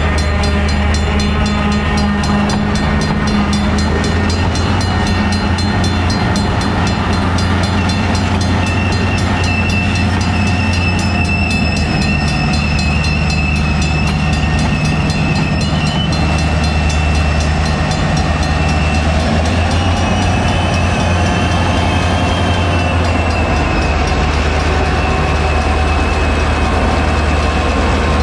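Slow freight train rolling through a grade crossing: tank cars clanking over the rails under the steady low drone of an approaching diesel locomotive, with a crossing bell ringing. A thin high squeal wavers in and out in the second half.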